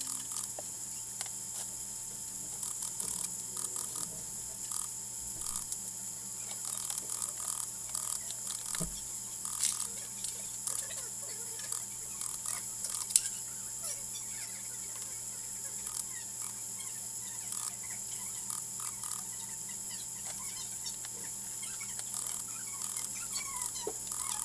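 Steady electrical hum and hiss, with scattered small clicks and rustles as the plastic headgear of a welding helmet is handled and adjusted.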